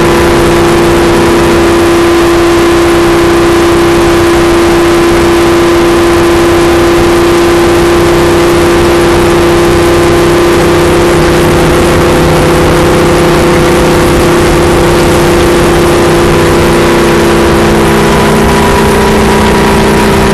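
Stock car's V8 engine running flat out at steady high revs, heard loud from inside the cockpit over heavy wind and road noise, its pitch shifting slightly near the end.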